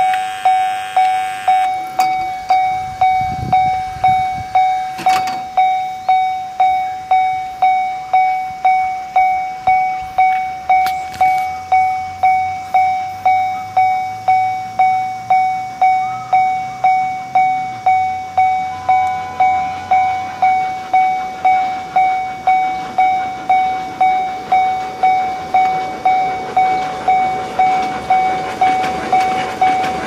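Miniature railway crossing warning bell ringing its 'kan-kan' alarm: one clear tone, struck evenly about one and a half times a second. Near the end the miniature steam-locomotive-style train rumbles up to the crossing.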